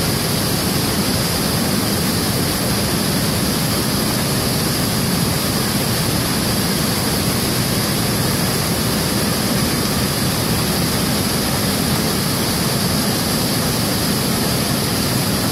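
Steady rush of river water flowing, an even noise that does not change.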